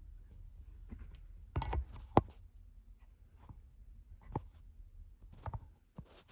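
Hands handling purchased items and their packaging: scattered light knocks, clicks and rustles, with the sharpest click a little after two seconds in.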